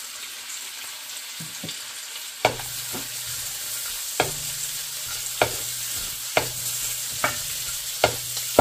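Sliced onions, garlic, cloves and star anise sizzling in butter and oil in a steel wok, stirred with a wooden spatula that knocks against the pan about once a second from a couple of seconds in.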